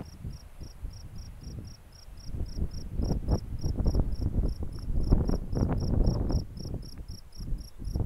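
An insect chirps in an even, high-pitched pulse, about five chirps a second, without a break. Beneath it, a low rumble and rustle of wind on the microphone rises and falls, strongest in the middle.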